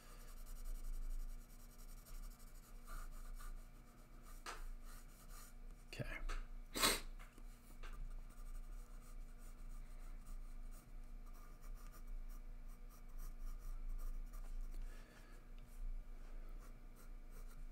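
Graphite pencil shading on sketchpad paper: faint, irregular scratching strokes, with a few sharper strokes around four and a half, six and seven seconds in.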